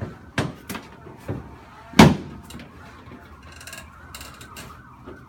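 Chiropractic treatment table clicking and knocking as a patient turns over onto her back, with one heavy thump about two seconds in.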